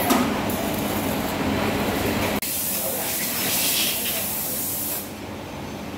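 Diesel engine of a rebuilt Iseki tractor running steadily. About two seconds in the sound breaks off sharply, and a loud hiss follows over the engine for a couple of seconds before easing off.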